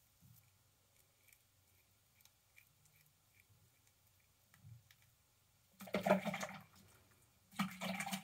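Water splashing twice in a bathroom sink during a wet shave, each splash lasting under a second, after a few faint ticks.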